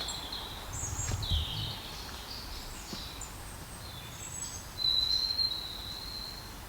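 Several birds singing and chirping, with one long, high, steady whistle near the end. A brief low rumble sounds about a second in.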